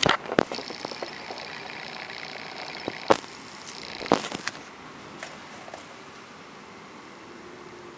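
Handling noise from a hand-held camera being moved and reframed: a few sharp knocks and clicks, the loudest at the start and about three seconds in, with a faint high whine between them, over a steady background hiss.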